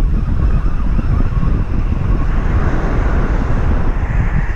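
Wind buffeting the microphone in a heavy, uneven rumble, with waves washing over a pebble beach, the wash swelling about three seconds in.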